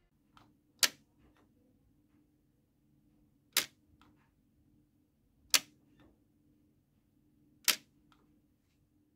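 LEGO 7862 remote-controlled decoupler for the 12V train system switching, its track ramp snapping up and down: four sharp clicks about two seconds apart, over a faint steady hum.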